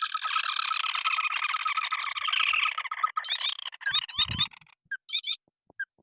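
Rails calling in a dense, harsh chattering chorus for about four and a half seconds, then breaking into separate short rising squeaky notes. A low thump falls near the end.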